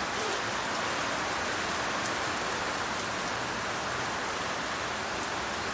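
Steady rain falling on paving and a wet tabletop, an even hiss with scattered close drops ticking.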